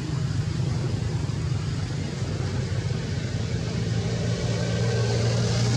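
A steady low mechanical hum that holds its pitch, rising slightly in level near the end.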